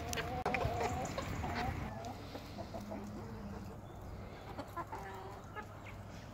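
Chickens clucking and calling while feeding, with a drawn-out wavering call in the first two seconds, then quieter clucks and scattered light pecking taps.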